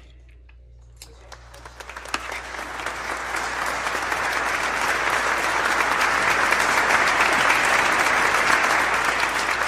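Applause: many hands clapping, building up over the first few seconds, holding loud, then starting to fade near the end.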